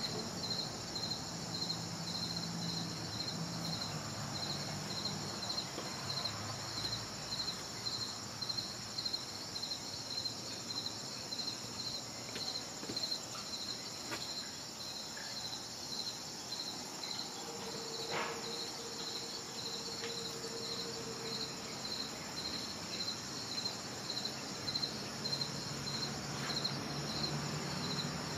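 A steady chorus of insects, one chirping rhythmically a couple of times a second in a high pitch, with a few faint clicks.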